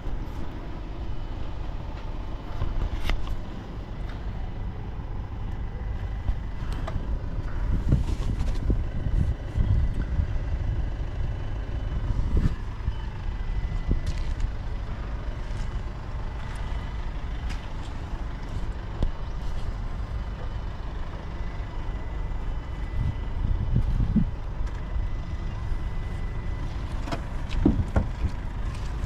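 Steady low rumble of a running vehicle engine, with a thin continuous high tone and scattered clicks and knocks.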